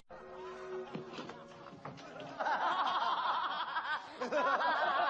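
Laughter: quiet at first, then a run of snickering chuckles about halfway through, in quick repeated bursts.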